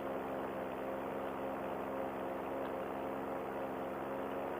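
Paramotor engine and propeller running steadily in cruise flight, an even drone that holds one pitch, picked up by the pilot's headset microphone.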